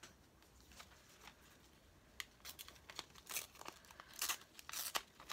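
Magazine paper crackling and rustling in the hands as a cut-out figure is handled, in irregular short crackles starting about two seconds in.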